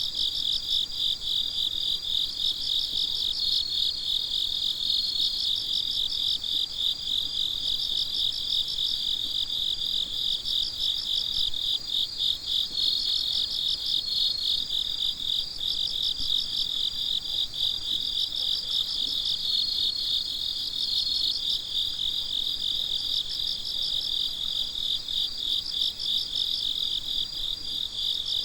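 Chorus of crickets and Japanese bell crickets (suzumushi) singing: dense, rapid high-pitched chirping, with a longer ringing trill that swells in and fades every several seconds.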